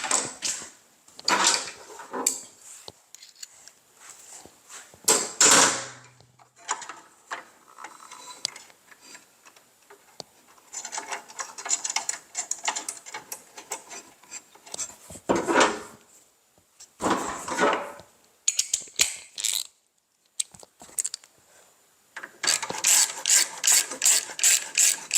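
Parts of a miter saw being handled and fitted, with scattered knocks and scraping. Near the end a hand ratchet clicks rapidly and evenly, about four to five clicks a second, as a bolt is tightened.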